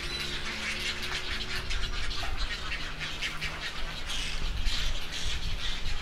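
Many birds chattering and squawking together, a dense continuous chorus of short high calls, over a faint low steady hum.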